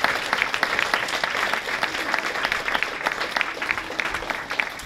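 Audience applauding: a dense, even patter of many hands clapping.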